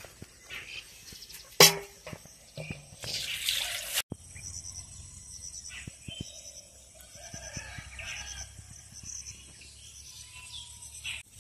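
A sharp knock about a second and a half in and a short rush of noise, then, after a sudden cut, small birds chirping in repeated quick trills over a low steady background rumble.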